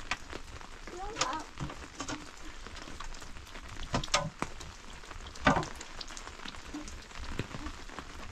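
Hand digging tool striking and scraping the earthen back wall of a rock shelter, with a few sharp knocks, the loudest about five and a half seconds in, over a steady crackle of loose soil and grit.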